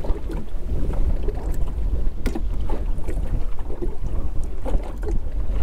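Wind buffeting the microphone in a heavy low rumble, with choppy waves slapping and knocking irregularly against the aluminium boat hull.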